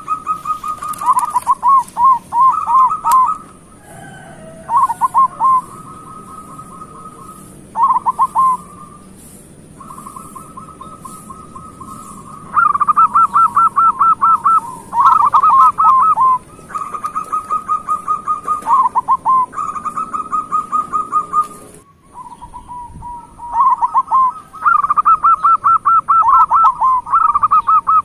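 Zebra dove (perkutut) cooing over and over: phrases of quick, rolling coo notes, some held and some warbling, running into one another, loudest in two long runs partway through and near the end.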